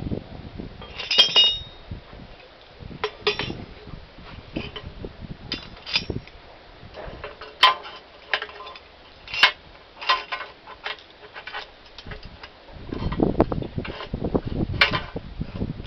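Metal tools and parts clinking and knocking as they are handled, with a ringing metallic clink about a second in and a stretch of heavier scraping and knocking near the end.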